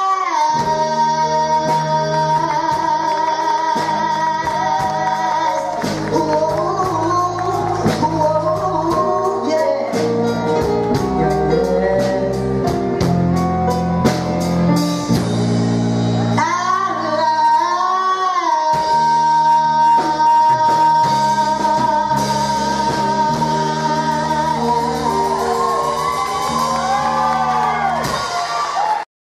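A singer with a high voice performing live with a band and drums, twice holding one long high note for several seconds over a steady fast beat. The music cuts off suddenly at the very end.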